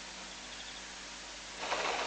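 Elephants at a waterhole: one short, loud whoosh of noise about a second and a half in, over a steady hiss.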